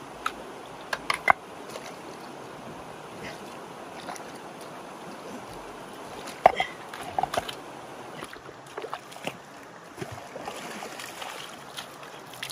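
Rocks knocking and shallow water sloshing as stones are set onto a water pump's suction hose in a muddy streambed, with a few sharp knocks, the loudest about six and a half seconds in, over a steady hiss of water.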